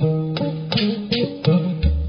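Instrumental music of plucked string notes struck in an even pulse, with a deep bass note coming in near the end.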